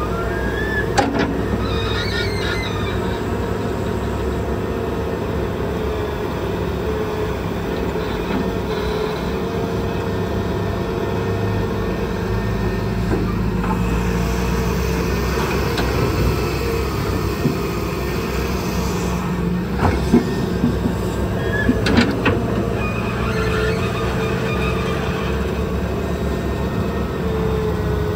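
Large hydraulic excavator's diesel engine running steadily under working load, with a few sharp knocks, the loudest about twenty seconds in and again two seconds later.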